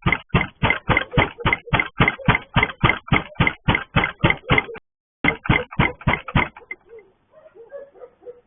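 Rapid, even banging on a gate, about four blows a second, with one brief break. The banging stops about two-thirds of the way in.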